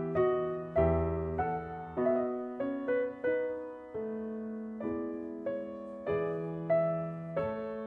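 Background music: a keyboard in a piano sound playing a slow, gentle melody, each note struck and fading before the next.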